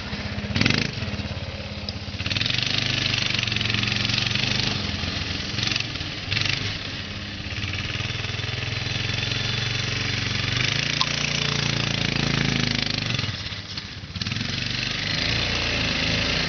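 ATV (quad bike) engine running, its pitch rising and falling as the throttle changes, with a hiss over it; it dips briefly near the end.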